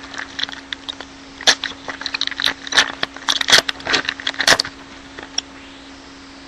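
Trading cards and their foil pack being handled: a quick, irregular run of crisp snaps and rustles that stops about four and a half seconds in, over a faint steady mains hum.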